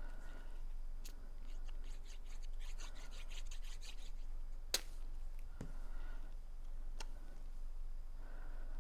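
Cardstock paper pieces being handled, rubbed and creased: scratchy rustling for a few seconds, then a sharp click a little before the middle and two fainter taps after it.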